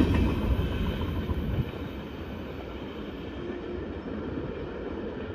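Freight train cars rolling past on the rails. The wheel noise falls off sharply about a second and a half in, leaving a fainter, steady rumble of the receding train.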